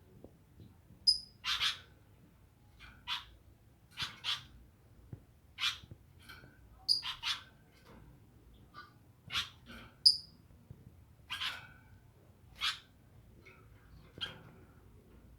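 Caged bird calling: a series of short, harsh calls roughly once a second, with a few brief, piercing high chips mixed in.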